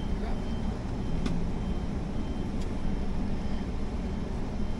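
Steady low rumble of a car engine idling, heard from inside the cabin with the driver's window open, with a couple of faint clicks.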